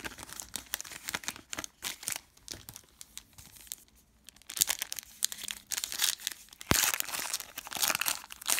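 Crinkling and tearing of a trading-card pack's wrapper and cards being handled, a rapid irregular crackle that gets louder about halfway through, with a sharp snap near seven seconds in.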